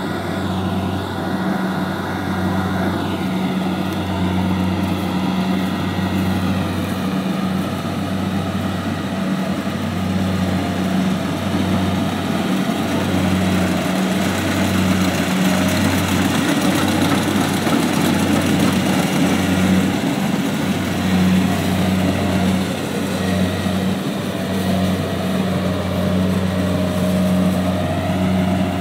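Kubota DC70 combine harvester's diesel engine running steadily as it cuts and threshes rice: a steady low hum over an even rushing noise.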